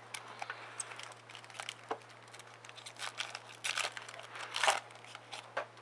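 Foil wrapper of a Topps Chrome baseball card pack crinkling and crackling as it is torn open by hand, in irregular bursts of crackle that are loudest about four seconds in.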